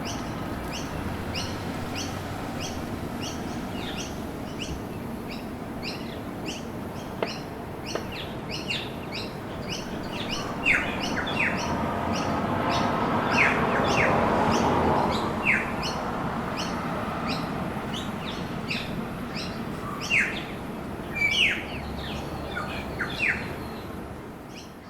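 Small birds chirping, many short quick chirps about twice a second, over a steady low hum of city traffic. The traffic noise swells for a few seconds in the middle as something passes, and the whole scene fades out at the end.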